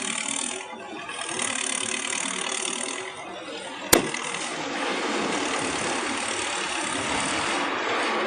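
Building demolition noise: machinery running amid clattering debris, with one sharp crack about four seconds in.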